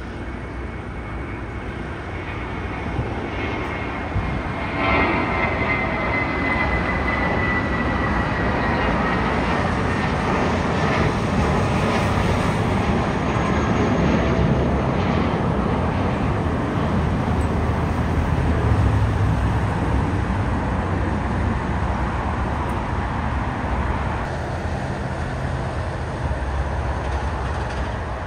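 Airbus A320's IAE V2500 turbofan engines at takeoff power as the jet lifts off and climbs out: steady jet engine noise that builds over several seconds, with a whine sliding down in pitch about five seconds in, then eases slightly near the end.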